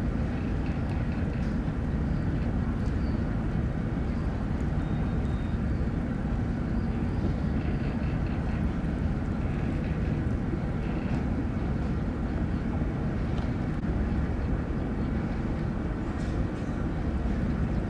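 Steady, even low rumble of a boat engine running on the water.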